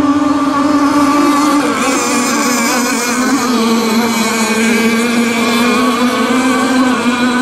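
Radio-controlled racing boats' motors running flat out across the water, a steady high buzz that dips slightly in pitch about two seconds in and then holds.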